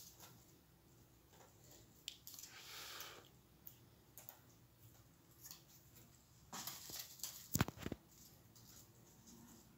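Faint rustling and small clicks of paper pieces being handled and pressed onto a cardboard box, with a brief cluster of sharper knocks near the end.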